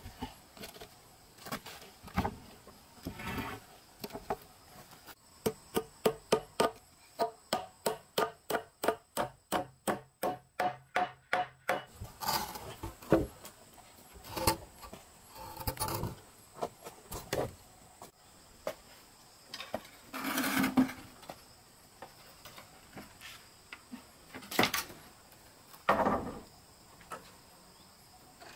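Carpentry knocks on timber: a fast, even run of sharp blows on wood, about three a second for some seconds, then scattered single knocks and thuds as beams are handled.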